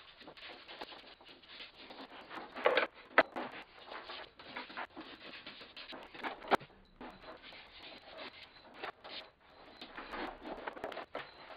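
Hand plane shaving the edge of a western red cedar strip in a run of short scraping strokes, cutting a bevel along the strip; a couple of sharp knocks come among the strokes.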